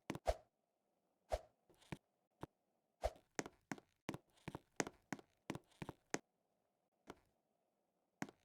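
A series of sharp, irregular knocks and taps, thickest in the middle, over a faint steady background hum.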